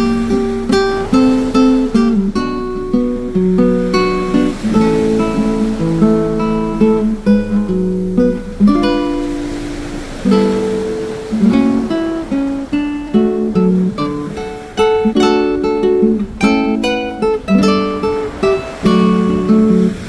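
Background music played on acoustic guitar: a steady run of plucked notes and chords.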